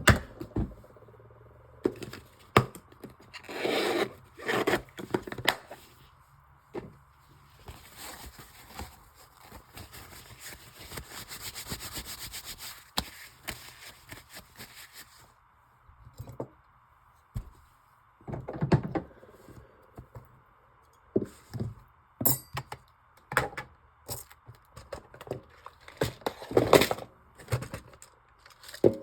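Bench work on a straight razor and its pinned scales: scattered small taps, clicks and scrapes of metal tools, with a stretch of steady rubbing for several seconds in the middle.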